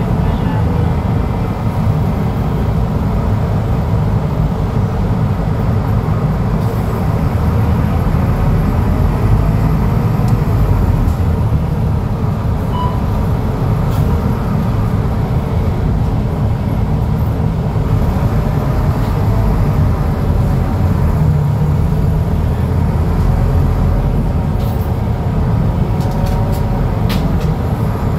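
Scania DC09 five-cylinder diesel of a Scania K250UB midibus running, heard from inside the passenger cabin as a steady low drone, with a few light clicks near the end.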